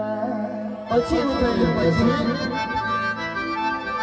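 Adivasi timli band playing live: a held, accordion-like lead melody over drums, with a hard drum hit just under a second in.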